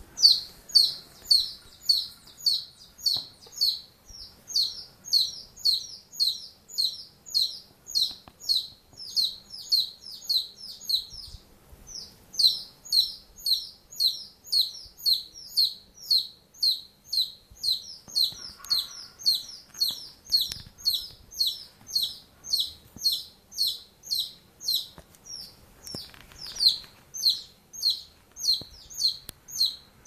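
A small bird calling without a break in a rapid, regular series of short high chirps, about two to three a second, pausing briefly about eleven seconds in.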